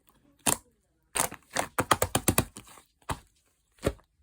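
Fluffy clay slime being handled, giving sharp crackling pops: a couple of single pops, then a quick run of them in the middle, then two more.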